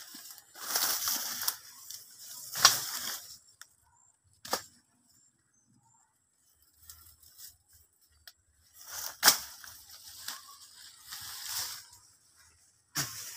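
Leaves and brush rustling and crackling as people push through dense undergrowth, in several bursts. Two sharp cracks stand out, one about three seconds in and one near nine seconds, with a shorter click between them.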